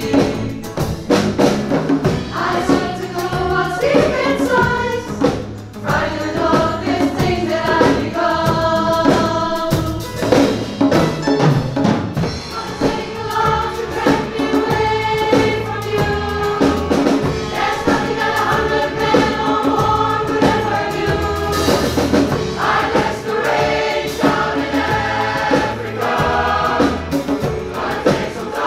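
Mixed choir of men and women singing together in harmony, over a steady hand-drum beat.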